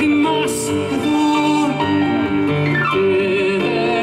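Live band playing a song: a woman singing over acoustic guitar and keyboard, amplified through a PA.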